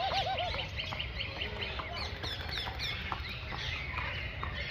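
Many small birds chirping and twittering, with a quick run of four low clucking notes right at the start.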